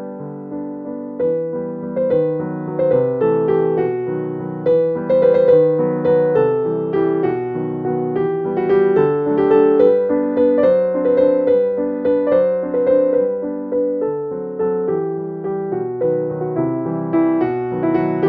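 Background music: a gentle piano melody with notes struck in a steady, flowing rhythm.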